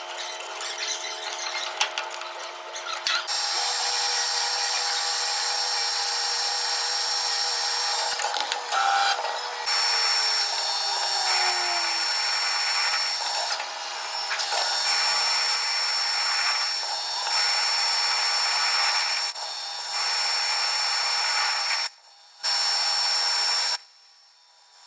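Metal lathe cutting a workpiece: a steady, loud cutting hiss with high whines from the machine, and one tone sliding down in pitch over several seconds partway through. The sound drops out abruptly twice near the end.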